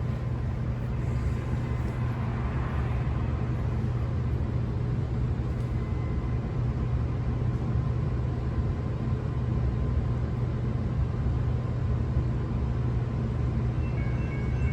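Steady low rumble of motor vehicles, even in level throughout, with no distinct events.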